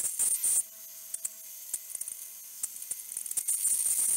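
Milling machine cutting metal with an end mill, lubricated from an oil can: a steady motor hum under irregular scraping and clicking from the cut, with a louder hissing stretch at the start and again near the end.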